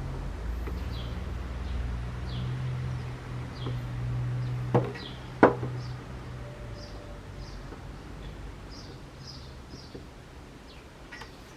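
A small bird chirping again and again in the background, short high chirps every half second or so, over a low hum. Two sharp clicks come about five seconds in.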